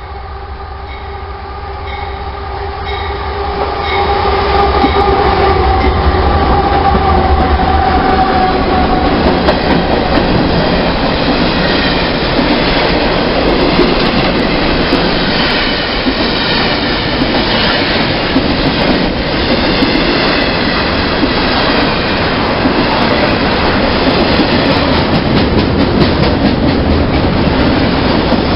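Freight train approaching and then passing close by. A steady pitched drone from the oncoming locomotive grows louder over the first few seconds and fades out about nine seconds in, leaving the loud, steady rumble and clatter of freight cars rolling past.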